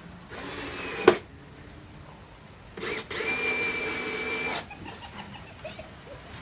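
Power drill running in two short bursts: a brief run ending in a sharp click about a second in, then a steadier run of about a second and a half with a high, even whine, typical of driving screws while assembling a speaker box.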